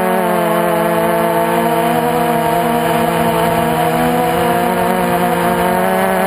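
Multirotor drone's electric motors and propellers buzzing steadily in flight, heard from the camera on board: several tones layered together, their pitch wavering slightly.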